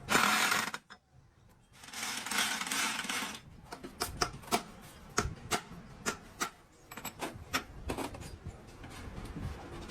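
Two bursts of hiss, then a run of irregular sharp clicks and taps.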